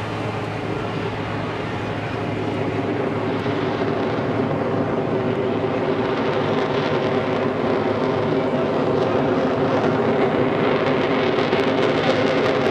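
Engines of a Waco taperwing biplane with a jet engine mounted underneath, running during an aerobatic climb: a steady drone that grows gradually louder.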